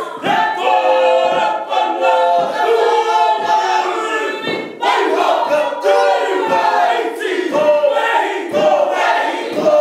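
Māori kapa haka group of men and women chanting and singing together in unison, loud and rhythmic, the voices pulsing about once a second.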